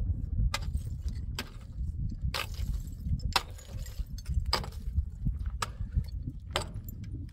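Sharp knocks about once a second, with a clink to them, over a steady low rumble.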